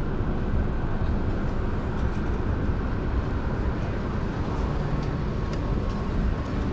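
Harley-Davidson motorcycle running at low speed, a steady low rumble.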